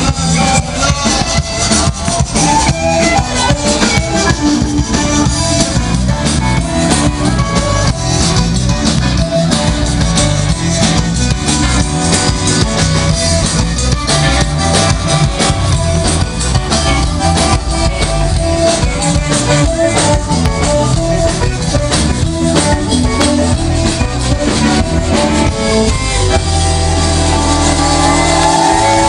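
Live band playing loud amplified music: drum kit, electric guitar and bass, with accordion. Near the end the band holds a long chord.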